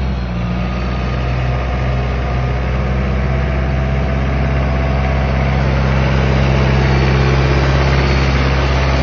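Kubota tractor's diesel engine running steadily close by, getting a little louder in the second half.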